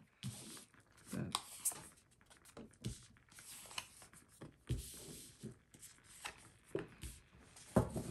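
Tarot cards being drawn off a deck and laid down one by one on a cloth-covered table: irregular soft flicks, slides and light taps of card stock.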